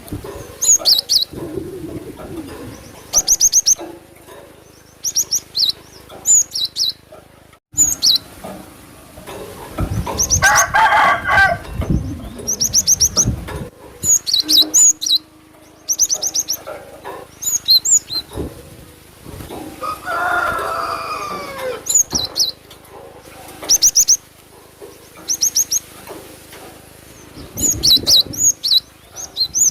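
Glatik batu (cinereous tit) calls used as a trapping lure: quick groups of three to six short, high, sharp notes, repeated every second or two.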